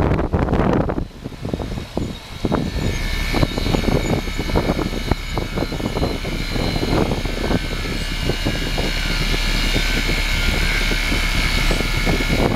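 Coleman heat pump outdoor unit running freshly started: a steady low compressor hum and condenser fan, with a high steady whine setting in about three seconds in. Irregular knocks and rustles sound over it through the first half.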